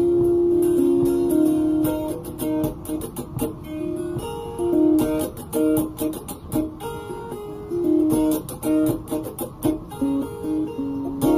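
A guitar-like plucked string instrument playing an instrumental melody of quick single notes, each picked with a sharp attack, with no singing.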